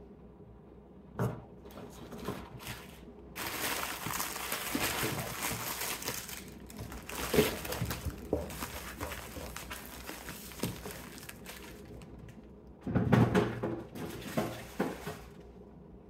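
Plastic zip-top freezer bags of frozen food crinkling and rustling as they are handled, with scattered light knocks and a louder bout of bumping near the end.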